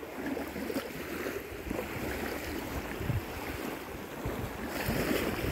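Small waves lapping on a sandy river shore, a steady wash of water, with wind rumbling on the microphone in a few low gusts.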